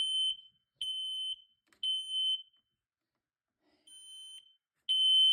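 Smoke alarm sounding its test tone, set off with its test button: high-pitched half-second beeps in the temporal-three pattern, three beeps about a second apart, a pause, then two more.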